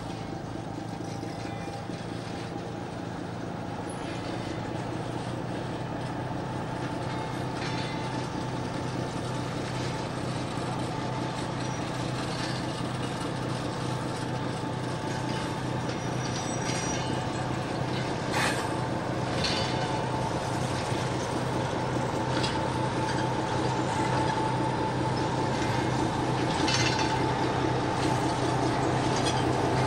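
LDH-Faur diesel-hydraulic shunting locomotive running steadily under load as it moves a rake of freight hopper wagons at walking pace, getting louder as it nears. Occasional clanks from the wagons come through, and a thin high squeal joins in over the second half.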